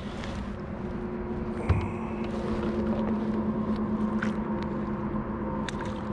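A steady motor hum, even in pitch, with a single sharp knock about two seconds in and a few faint clicks.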